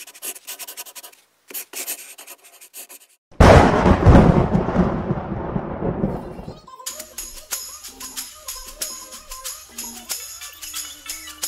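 Intro sound design: scratchy pencil-sketching strokes, then, about three and a half seconds in, a sudden loud cinematic impact whose rumble dies away over about three seconds. Music with held tones and a steady beat follows.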